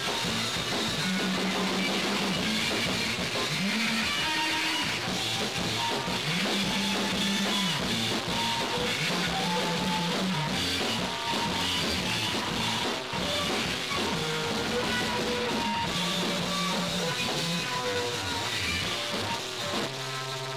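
Noise rock: distorted electric guitar and drums in a dense wall of sound, over a low note that steps up and down.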